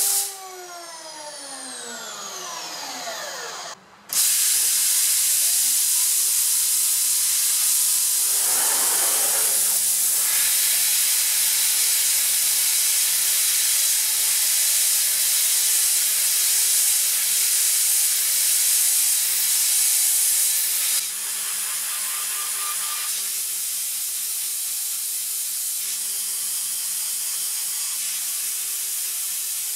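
CNC router spindle winding down with a falling whine, then, after a short break, a loud hiss of air-driven mist coolant. Under the hiss the spindle spins back up to a steady whine at 12000 RPM while a 1.5 mm drill peck-drills aluminium. The hiss drops somewhat about two-thirds of the way through.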